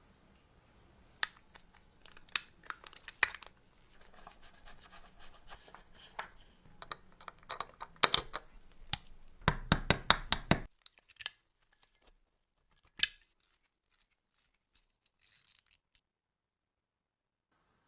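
Small metal parts and tools clicking, clinking and scraping during hand work on a vintage table lighter: scattered sharp clicks with some scraping, a quick run of clicks just after the middle, one last click, then quiet.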